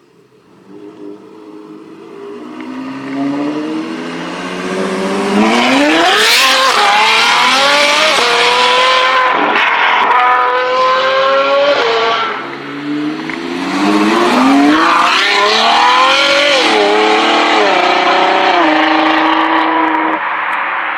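High-performance sports car engine accelerating hard through the gears: the pitch climbs, drops sharply at each upshift, and climbs again. The sound builds up over the first few seconds, dips briefly about halfway, then a second hard run through several upshifts follows.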